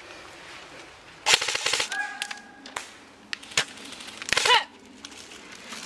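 Airsoft M4 electric rifle firing a rapid burst of about half a second, followed by a few single shots. A short shout comes near the end.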